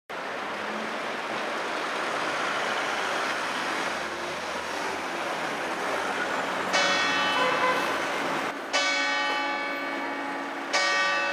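A bell tolls three strokes about two seconds apart, the first a little past halfway. Each stroke rings on until the next, over a steady hiss of street noise.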